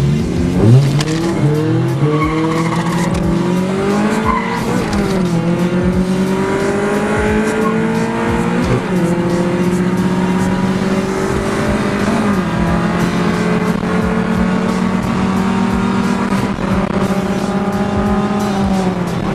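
Car engine at full throttle in a street race: it revs up and shifts through the gears over the first several seconds, then holds a high, steady drone at speed before the revs drop off near the end.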